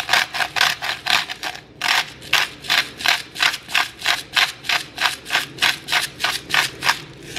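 Salt grinder being twisted over a pot, grinding salt in quick rasping strokes, about three a second, with a short pause just under two seconds in.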